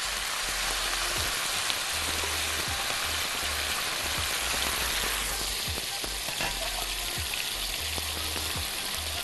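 Minced meat frying in hot ghee in a wok: a steady sizzle that starts as the meat hits the fat and eases slightly about five seconds in.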